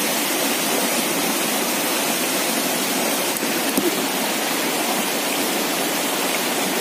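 Shallow rocky stream rushing and splashing over stones close by: a steady, even water noise.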